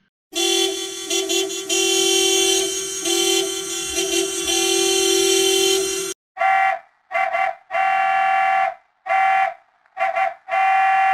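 Taxi horn sound in two edited variations. First a horn held for about six seconds, a low and a higher tone sounding together with a few brief dips. Then a higher single-pitched horn in a run of short beeps and longer blasts, ending on a long one.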